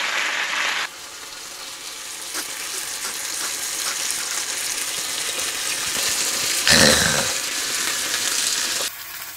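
Beef steak sizzling in a pan on a portable gas stove, a steady frying hiss. About seven seconds in, a short, louder vocal sound cuts in.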